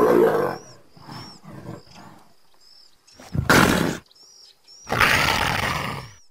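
Leopard snarling and growling in harsh bursts: one as it opens, weaker ones after, then two loud growls of about a second each in the second half. Small birds chirp faintly behind.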